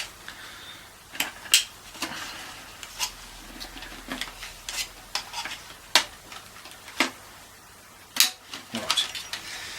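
Irregular clicks, taps and clatter of plastic and metal parts as a car radio is taken apart by hand, its plastic front being released from the metal frame.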